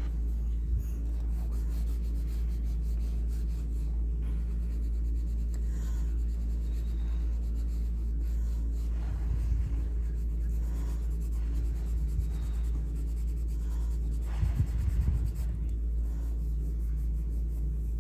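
Graphite pencil scratching and shading on paper, over a steady low hum, with a few soft low bumps about halfway through and again near the end.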